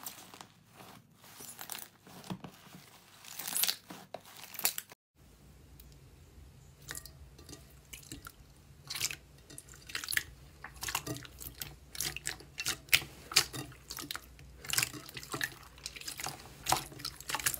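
Hands squishing and kneading slime, with many quick sticky clicks and wet pops. A brief break about five seconds in; after it the sound is a clear blue 'fake water' slime being pressed and spread by hand in a glass bowl, and the clicks come thicker.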